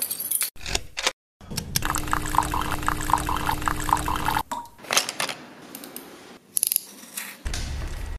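A key clicking in a door-lock cylinder, then an espresso machine pouring coffee into a cup for about three seconds: a steady pump hum under spluttering liquid, which stops about four and a half seconds in.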